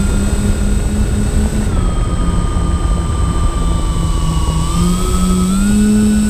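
The twin electric motors and propellers of a MyTwinDream FPV model plane whining steadily, heard from the onboard camera over heavy wind rush; two close tones show the two motors running at slightly different speeds. The pitch dips about two seconds in and climbs back up near the end.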